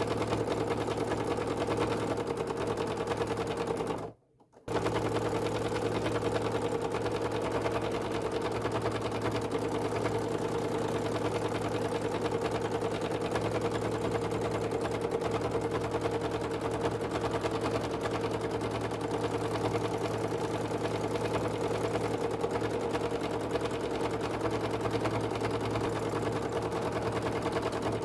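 Domestic sewing machine running fast and steadily, its needle stitching through fabric in a rapid even rattle, with one half-second break about four seconds in.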